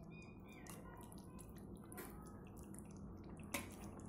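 Thick kofta curry gravy simmering in a pan, with faint, irregular little pops and plops of bursting bubbles; one pop is a little louder near the end.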